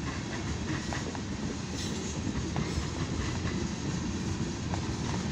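Freight cars of a CSX mixed freight train rolling past at a grade crossing: a steady rumble of wheels on the rails.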